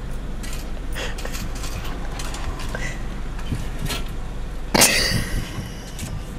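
Ford Mustang idling, heard from inside the cabin, with scattered small clicks and one short loud burst of noise about five seconds in.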